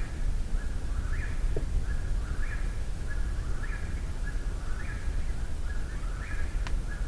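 Eastern whip-poor-will singing, its three-part whip-poor-will phrase repeated steadily about once every second and a quarter, over a low steady rumble.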